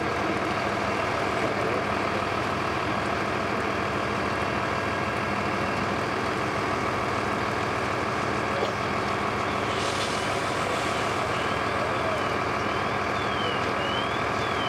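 Fire engine running with a steady engine drone at a fire scene. About two-thirds of the way in a hiss starts, along with a faint high warbling tone that rises and falls about once a second.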